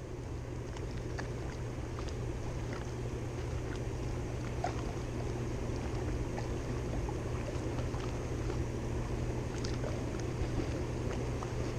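Steady low hum under an even wash of water noise, with a few faint ticks scattered through it.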